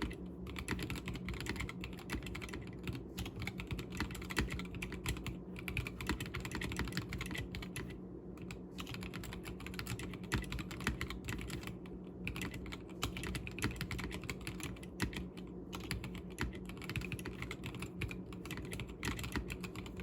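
Steady typing on an Akko Sakura Jelly 3087 tenkeyless mechanical keyboard with stock Gateron Pink 43g linear switches in a stacked acrylic case: a fast run of keystroke clacks, with brief pauses about eight and twelve seconds in.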